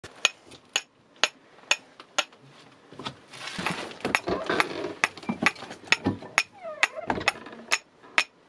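A blade tapped into a piece of wood on a cast-iron stove top to split kindling: sharp knocks about twice a second, with scraping and rustling of the wood in the middle.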